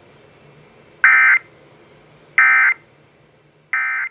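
Emergency Alert System end-of-message signal: three short bursts of screeching two-tone data (the 'NNNN' code), about a second and a half apart, over faint radio hiss, marking the end of the severe thunderstorm warning broadcast.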